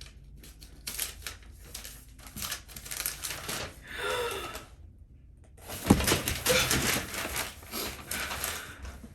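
Packaging being handled while a hair dryer is unboxed: rapid rustling, crackling and clicking of wrapping and box, in two stretches with a short pause between, and a sharp knock about six seconds in.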